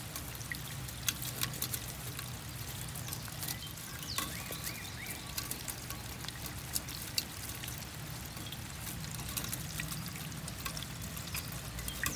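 Water pouring from a gutter downspout into a 3D-printed PLA splash boat and trickling out through its bow portholes onto stones: a steady pouring hiss with frequent small sharp splashes and drips.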